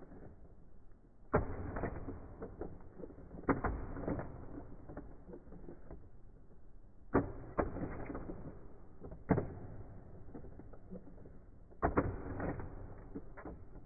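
Treasure X Gold plastic battle toy being worked by its push-buttons: the figures' arms and weapons clack and knock together, five loud knocks a few seconds apart with lighter plastic clicks between.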